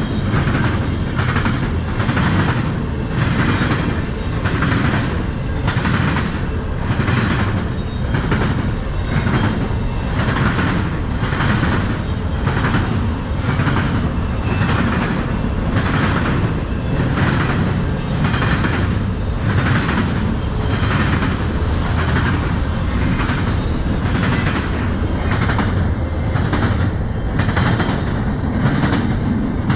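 Double-stack intermodal well cars of a CN freight train rolling past, a heavy steady rumble. The wheels clack in an even rhythm of about one and a half beats a second as they cross the diamond.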